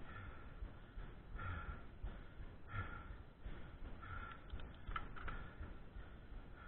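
A cyclist breathing hard in a steady rhythm, one breath roughly every second and a half, over a low steady rumble. There are a few faint clicks about two-thirds of the way through.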